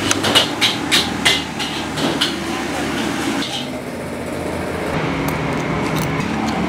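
Metal spoon clinking and scraping against a ceramic plate while scooping up fried rice, a quick run of sharp clinks in the first two seconds, over a steady low background hum.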